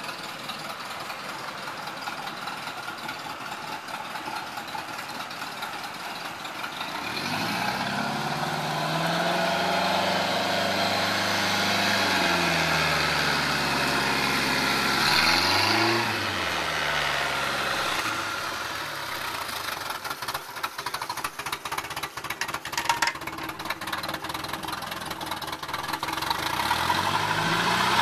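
The 3.0-litre MerCruiser four-cylinder inboard engine of a 1988 Sea Ray Seville bowrider, running on the trailer. It is revved up after several seconds and held, eased off, blipped sharply about halfway through, then dropped back to a lower, rougher speed, and it begins to rise again near the end.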